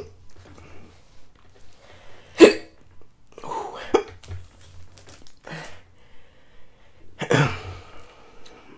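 A man hiccuping in a series of short, sharp, separate bursts, the loudest about two and a half seconds in and a longer, breathier one near the end. The hiccups are a reaction to the extremely hot One Chip Challenge chip he has just eaten.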